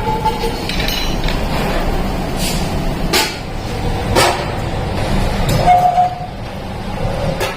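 Steady running of workshop machinery, with a few sharp metal clanks and short metallic rings.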